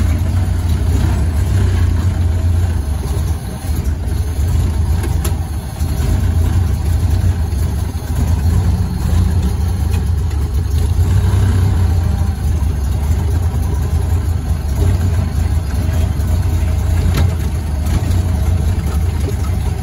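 Engine of a vintage car running steadily with a low drone as the car drives slowly, heard from inside the cab.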